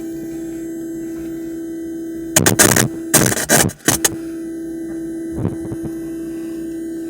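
Car stereo speakers giving off a steady buzzing hum, a ground-loop noise from the amplifier's RCA connections losing their ground. Loud handling knocks and rustles come twice, about two and a half and three and a half seconds in.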